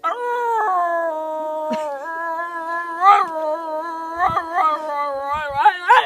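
Miniature schnauzer howling in imitation of a fire truck siren: one long held howl that dips in pitch, then a string of shorter wavering howls that rise and fall, coming quicker toward the end.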